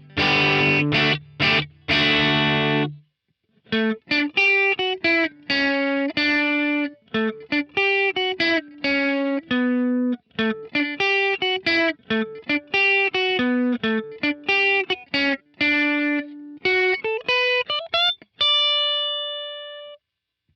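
Telecaster-style electric guitar played through a JHS Colour Box into a cranked AC30 amp sim. A few seconds of driven chords give way to a fast single-note lead run, which ends on one high ringing note that fades away.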